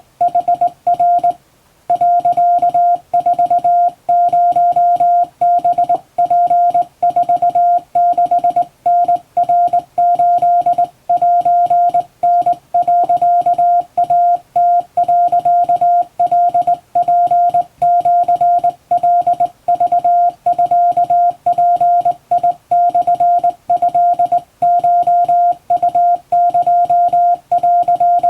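Japanese wabun Morse code hand-sent on a vertical straight key, heard as one steady beep tone keyed on and off in dots and dashes, with a longer pause about a second in.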